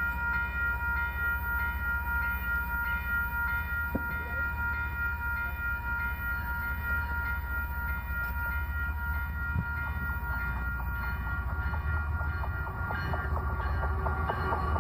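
An approaching freight train heard from a camera lying beneath the track: a steady low rumble with a high ringing tone held throughout, and wheel clicks on the rails that thicken and grow louder over the last few seconds as the train closes in.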